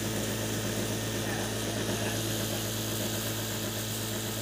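Jaki JR8700 industrial single-needle sewing machine running at a steady speed as it stitches a strip of fabric, a steady motor hum.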